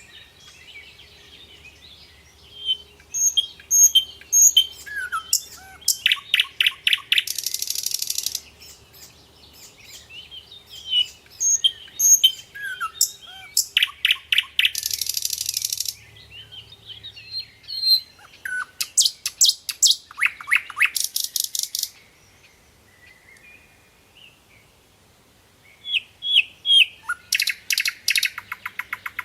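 Birds calling: scattered high chirps and short whistles, some sliding down in pitch, broken four times by bursts of rapid, high chattering lasting a second or two.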